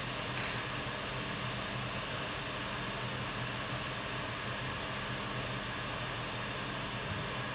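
Hot air blower of a conservation work station running with its flat nozzle, blowing steadily: an even rushing hiss over a low hum. A short click about half a second in.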